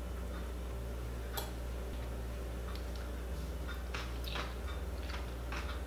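Crunching of someone chewing a bite of napa cabbage kimchi, a run of short crackly crunches in the second half, with a single light click about a second and a half in, over a low steady hum.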